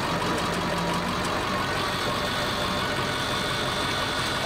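The Navistar Powerstroke diesel engine of an International rollback tow truck idles steadily, running the hydraulics as the bed and winch controls are worked.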